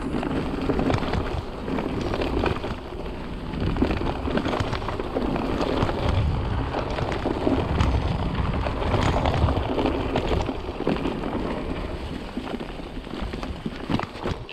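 Mountain bike tyres rolling fast over dry fallen leaves and dirt: a dense crackling rush dotted with quick rattles and knocks from the bike over the rough trail. It eases off toward the end.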